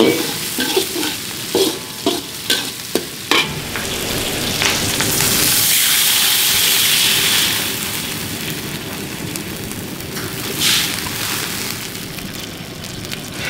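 A metal spatula scrapes and knocks on a large metal wok while chopped vegetables sizzle in hot oil. About five seconds in, water poured into the hot wok sets off a loud hiss for a few seconds, which then settles into a quieter, steady sizzle.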